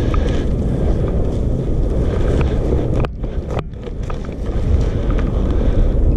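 Wind buffeting the camera microphone with a heavy low rumble, dipping briefly about three seconds in.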